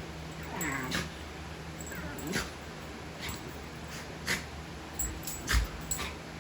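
Dogs at play: a few short dog vocal sounds, each falling in pitch, among scattered clicks and knocks, the loudest knock near the end.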